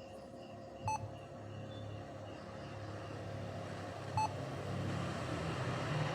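Two short electronic beeps about three seconds apart, over a low hum and hiss that grow steadily louder.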